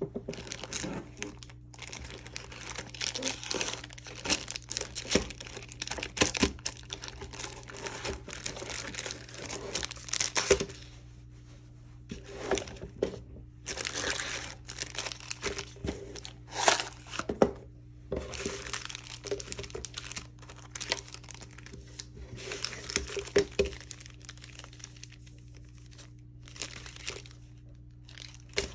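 Foil trading-card booster pack wrappers and plastic packaging crinkling and rustling as they are handled and lifted out of a cardboard box, in irregular bursts with sharp clicks and a few short pauses.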